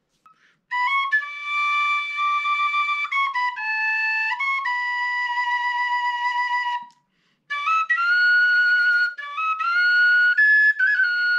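Penny whistle playing a tune of clear, high-pitched notes that step up and down, in two phrases with a short break about seven seconds in.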